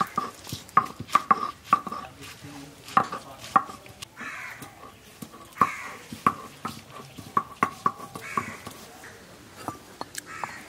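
Food being chopped with a knife on a cutting surface: irregular runs of sharp strikes, each with a short ring.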